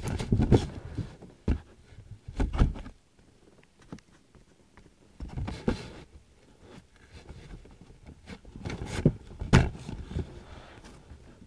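Irregular knocks and thumps with some scraping, spaced a second or a few apart, the loudest near the start and near the end: handling of the phone and gear against a small plastic boat.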